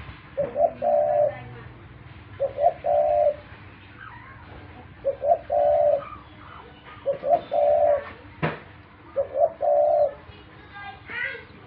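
Pet dove cooing: five repeated phrases about every two seconds, each a quick short coo followed by a longer held one. A single sharp click sounds between two phrases, past the middle.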